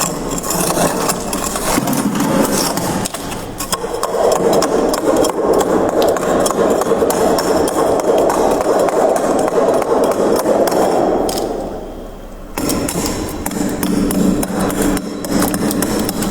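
Freezer frost crunching continuously under many small cracks and clicks, with a brief pause about twelve seconds in.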